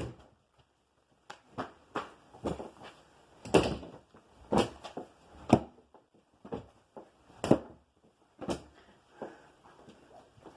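A string of irregular sharp knocks and clacks, about a dozen, from hard objects striking or being handled. They begin a little over a second in, with the loudest near the middle.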